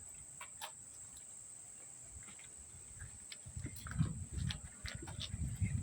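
A steady high insect chirring with a few light clicks, then bursts of low rumbling from about three and a half seconds in.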